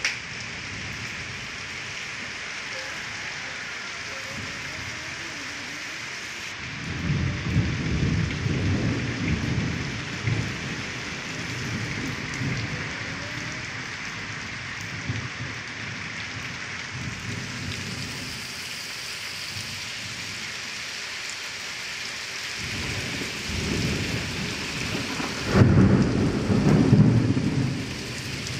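Heavy rain pouring steadily and splashing into running water, with two long rolls of thunder, about seven seconds in and again near the end, the second louder.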